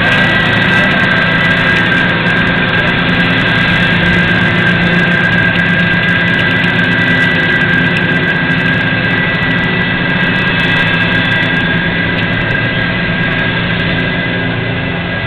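Type 74 main battle tanks driving, their air-cooled V10 diesel engines running with a steady high whine over a low drone, slowly fading as they move off.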